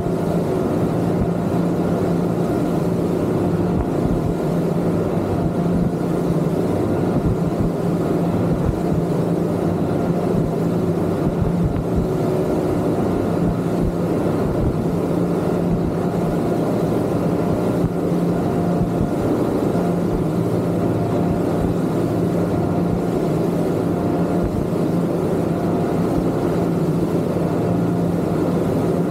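Twin Yamaha 250 outboard motors running steadily with the boat underway: a constant engine drone at an unchanging pitch over a dense rushing noise.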